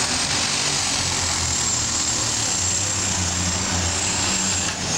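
Unlimited super stock pulling tractor's turbocharged diesel engine running flat out under load as it drags the weight sled, a loud steady roar with a high steady whine over it.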